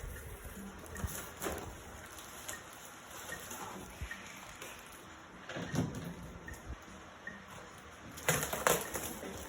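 Unpacking noises: irregular rustling, scraping and light knocks of goods being handled and taken out of their packaging, with louder bursts about a second and a half in, in the middle and near the end.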